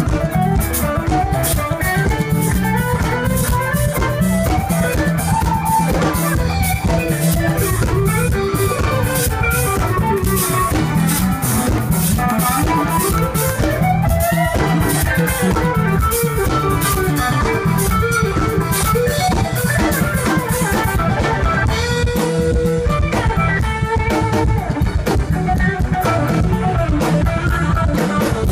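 Live band playing an instrumental groove: drum kit, electric guitar and bass guitar, with no vocals.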